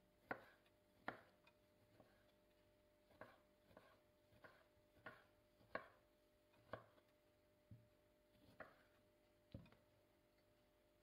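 Chef's knife slicing tomatoes on a wooden cutting board: about a dozen faint, irregularly spaced knocks of the blade reaching the board, which stop near the end.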